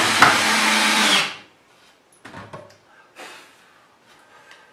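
Cordless drill driving a screw into a pine 2x4, its motor running at speed with a steady whine, then stopping about a second in. A few faint knocks follow.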